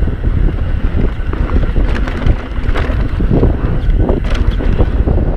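Wind buffeting a GoPro's microphone as a mountain bike rides down a dirt trail: a heavy, steady low rumble broken by scattered knocks and rattles from the bike over the ground.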